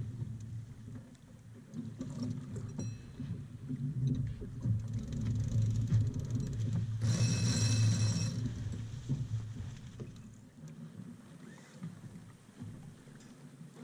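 A sailboat under way: a steady low rush of water along the hull, with wind buffeting the microphone. A brief rasping whir comes about seven seconds in.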